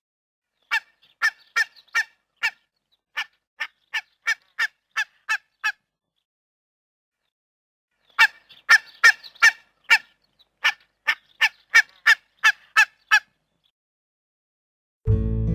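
Goose honking in two runs of short, quick honks, about two or three a second, with a silent gap of a couple of seconds between the runs. Acoustic guitar music starts right at the end.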